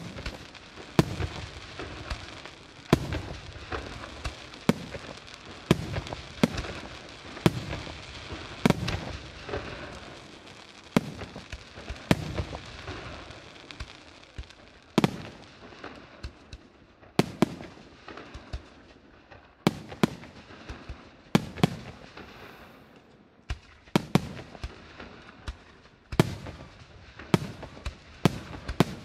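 Aerial firework shells bursting in a steady barrage, a sharp bang about every second over a continuous crackle of burning stars. The bangs thin out for a few seconds in the middle, then come faster again.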